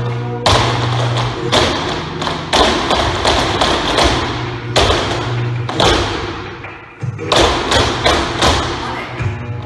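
Flamenco shoes stamping and tapping on a wooden floor in footwork, a group of dancers striking together in irregular clusters of sharp beats, with music faintly underneath.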